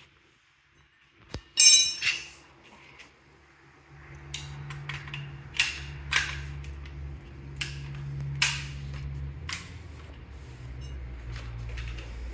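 Metal clanks and clicks as a rifle upper and a steel stand are handled and fitted together. There is one loud ringing clank about a second and a half in, then scattered sharper knocks over a low steady hum that starts about four seconds in.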